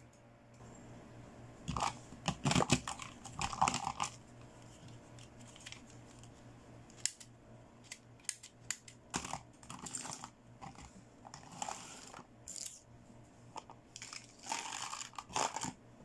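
Packaging crinkling and rustling as toy accessories are unboxed by hand, in irregular bursts with small clicks and taps between them. The loudest crinkling comes about two seconds in and again near the end.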